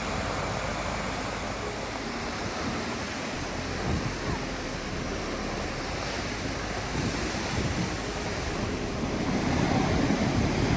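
Steady rush of moving water, such as surf, with wind buffeting the microphone; it grows louder near the end.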